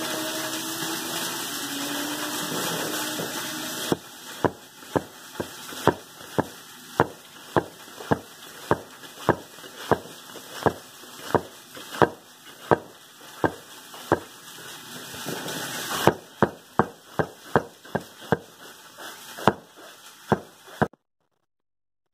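A heavy 6 lb kitchen axe chopping an onion on a wooden cutting board. The blade knocks sharply into the board about one and a half times a second, starting about four seconds in after steady background noise, and stops about a second before the end.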